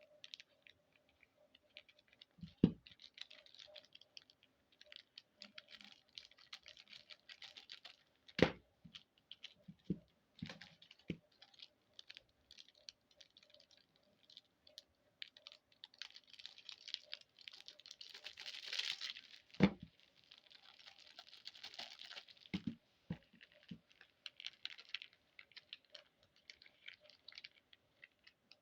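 Plastic candy wrappers and packaging crinkling and rustling as they are handled and torn open, with the longest stretch of rustling a little past the middle. A few sharp knocks stand out above it.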